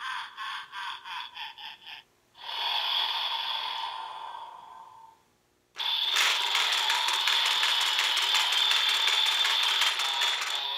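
DX Evol Driver transformation-belt toy playing its electronic sound effects through its small speaker. A rapid run of pulsing tones comes first, then a swelling tone that fades away. After a short gap, a dense, fast-pulsing sound with a steady high tone runs while the belt's crank handle is being turned.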